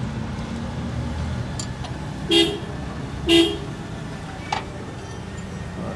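Two short vehicle-horn toots about a second apart, over a steady low rumble, followed by a single sharp click.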